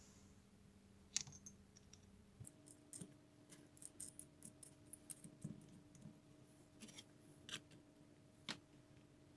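Faint, irregular clicks and light taps of small hard parts being handled, over a faint steady hum that shifts up in pitch about two and a half seconds in.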